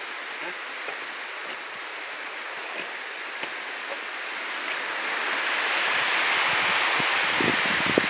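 Water rushing over a stepped concrete dam spillway: a steady hiss that swells about five seconds in and stays louder to the end.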